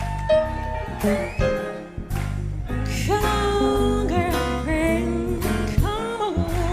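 Live jazz band playing while a woman sings long, sliding vocal lines over it.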